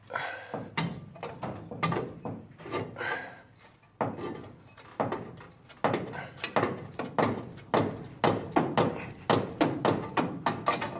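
A partly cut piece of car body steel being yanked and wrenched back and forth by hand: a run of irregular metal clanks and rattles that come faster and closer together in the second half.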